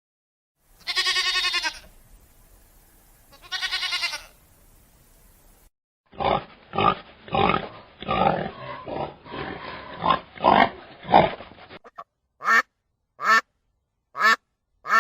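Farm animal calls in turn: two drawn-out, wavering bleats, then several seconds of rapid grunting, then short duck quacks repeated about once every seven-tenths of a second near the end.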